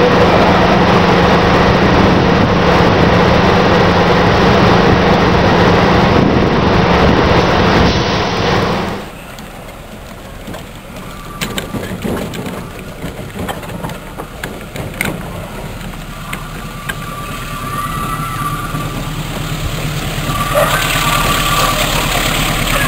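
Diesel-electric locomotive idling with a loud, steady low hum, which cuts off abruptly about nine seconds in. After that a train climbing uphill toward the listener is heard: its diesel engine starts faint and grows steadily louder as it approaches.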